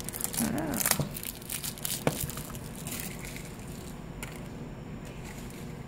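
Plastic toy packaging crinkling and crackling as small hands handle and squeeze it, with a cluster of sharp clicks in the first two seconds, then only faint handling noise.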